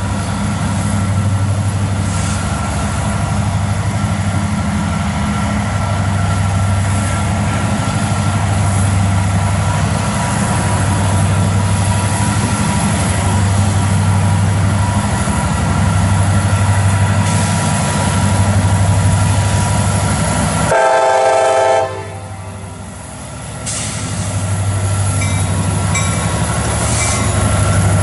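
Two EMD SD70M diesel-electric locomotives, with turbocharged two-stroke prime movers, working hard under load to pull a freight train as it rolls past. The deep engine drone swells and fades every couple of seconds, with a steady high whine above it. The sound drops away briefly near the end.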